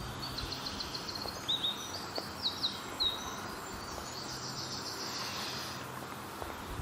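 Birds singing: a run of short, high chirps and quick falling notes in the first three seconds, followed by a thin, steady high buzzing for about two seconds.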